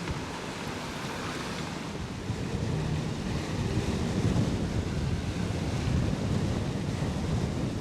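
Wind buffeting the microphone over rushing sea water while under sail, growing louder about two seconds in.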